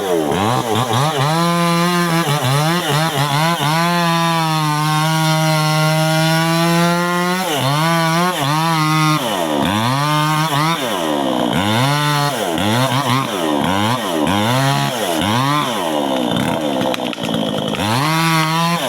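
Two-stroke chainsaw cutting a durian tree, its engine revved up and down again and again. It is held at steady full speed for about three seconds a quarter of the way in, then goes back to repeated rises and falls.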